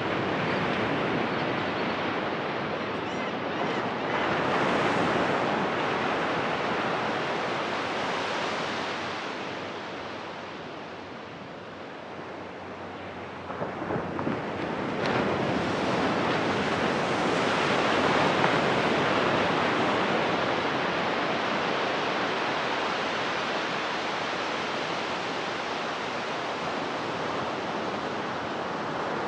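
Ocean surf breaking and washing up a sandy beach, swelling and fading, with a lull a little before the middle and louder breakers after it.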